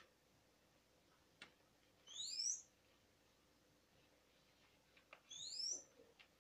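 A bird calls twice, about three seconds apart, each call a short rising whistle. Faint ticks of paper being handled and folded come in between.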